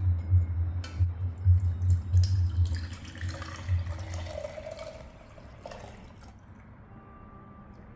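Liquid poured and dripping, with a few light clinks, over a low pulsing beat that fades out about three seconds in.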